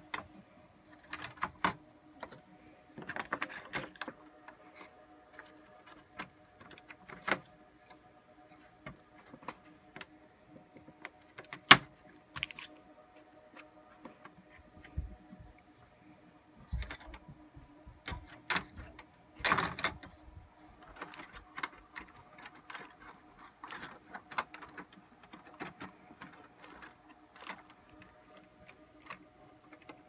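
Scattered clicks, knocks and light rattles of metal and plastic server parts being handled and clipped into place inside an open rack-server chassis, with one sharp snap about twelve seconds in. A faint steady hum lies underneath.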